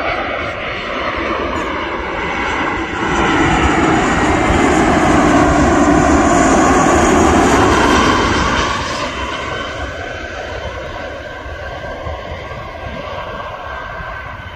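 Jet airliner passing close by: the engine noise swells about three seconds in, stays at its loudest for several seconds, then fades away.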